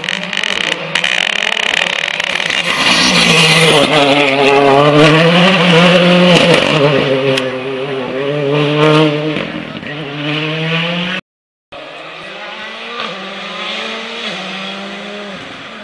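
Ford Fiesta Rally2 car's turbocharged four-cylinder engine at full throttle through a corner, the revs rising and dropping with quick gear changes, loudest as it passes. After a brief cut, a second rally car's engine, quieter, approaches.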